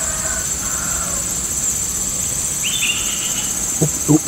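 Insects droning steadily at a high pitch, with a bird chirping faintly a couple of times and a few brief low sounds near the end.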